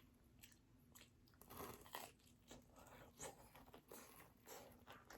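Faint chewing and biting of food, a run of small irregular crunches.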